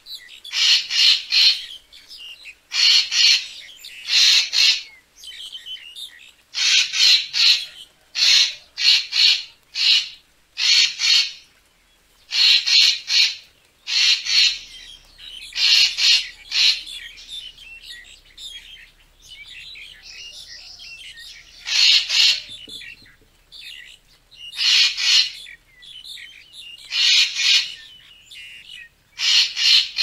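Racket-tailed treepie calling over and over: short, harsh notes in clusters of two to four, a new cluster every second or two, with fainter chatter between them.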